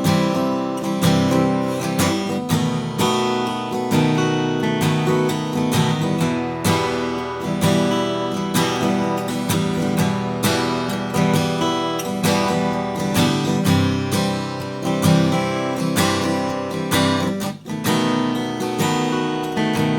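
Taylor PS14ce Grand Auditorium acoustic guitar being strummed and picked in a continuous run of chords, with a brief break about three quarters of the way through.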